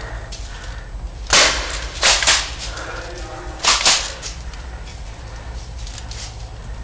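Airsoft pistol or shotgun shots: five sharp cracks, one, then a pair, then another pair, in the first four seconds.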